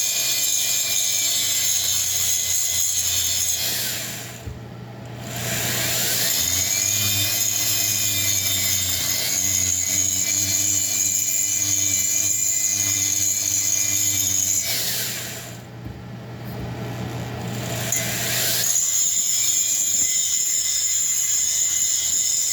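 Handheld rotary tool running slowly with a cone-shaped diamond bit, grinding a sharp edge off an Echo CS-8000 chainsaw cylinder; a steady motor whine. Twice it winds down and comes back up to speed, about four seconds in and again past the middle.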